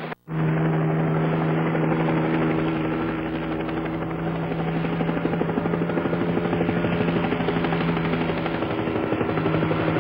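Helicopter sound effect: a steady rotor chop over an engine hum. It starts just after a brief dropout at the very beginning.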